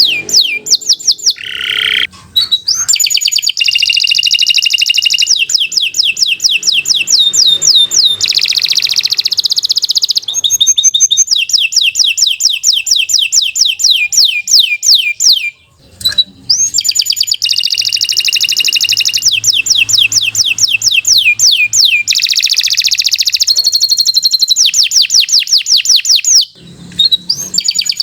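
Domestic canary singing a long, continuous song of rapid trills: fast runs of repeated downward-sweeping high notes that change from one trill type to the next, with brief breaks about two seconds in, near the middle, and near the end.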